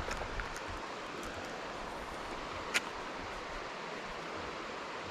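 Creek water running steadily, a constant rushing hiss, with one sharp click about three seconds in.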